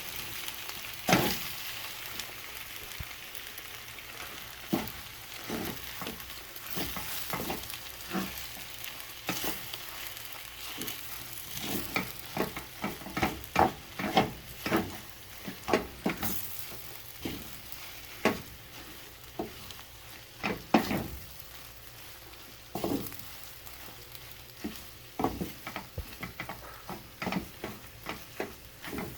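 Food sizzling as it is stir-fried in a pan, with a spatula scraping and knocking against the pan many times at an irregular pace.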